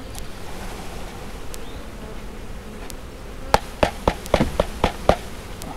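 Honey bees buzzing steadily as they are shaken out of a wooden package box into a hive. Just past halfway comes a quick run of about eight sharp wooden knocks as the package is jarred to dislodge the bees still clinging to it.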